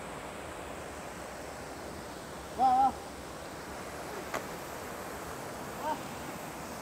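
Steady rush of river water, with one short voiced call from a person about two and a half seconds in and a sharp click about a second and a half later.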